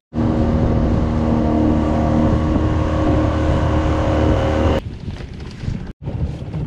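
Small fishing boat's engine running steadily while the boat is under way, a strong low rumble with a steady hum on top. It cuts off abruptly about five seconds in, giving way to wind buffeting the microphone.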